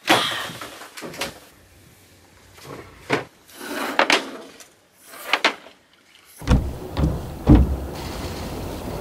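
A run of knocks, clicks and swishing handling noises as gear and lines are moved about aboard a moored sailboat. About six and a half seconds in, these give way to a steady rumbling hiss with a few dull thumps.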